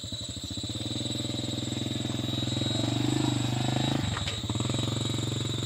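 Small motorbike engine running as the bike pulls away along a dirt track, its note rising a little in the middle and easing about four seconds in.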